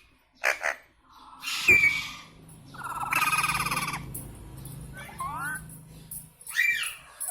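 Indian ringneck parakeet calling: a string of short squawks and chatter, a buzzy trill around the middle, then rising-and-falling whistled notes.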